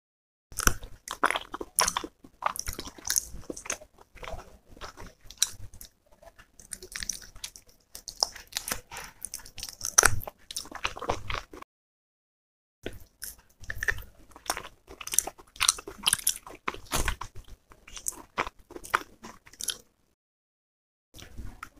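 Close-miked eating sounds: biting and chewing chicken masala curry, a dense run of short sharp mouth sounds. It stops dead for about a second about halfway through and again near the end.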